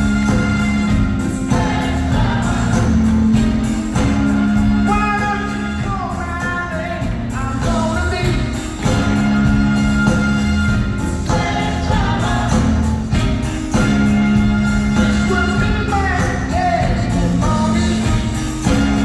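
Live rock band playing an upbeat song over a steady bass line, with a male lead vocal and backing singers.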